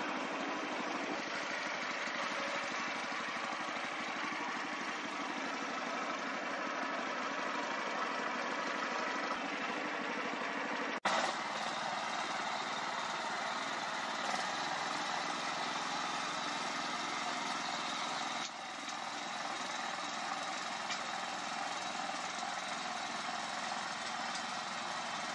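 Mini tractor's small four-stroke single-cylinder petrol engine running steadily, broken briefly by a sharp cut about eleven seconds in, then running on while the tractor pulls a rotary tiller through soil.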